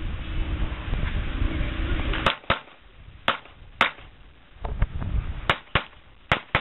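Gunshots in a shooting drill: about seven sharp cracks, some in quick pairs, beginning a little over two seconds in. Before the shooting there is a steady low rumble.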